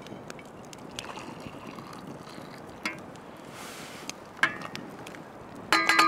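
Hot cocoa being poured from an enamel pot into insulated metal camp mugs: a steady pouring trickle with a few small metal clicks. Near the end comes a sharp metal clink that rings on briefly.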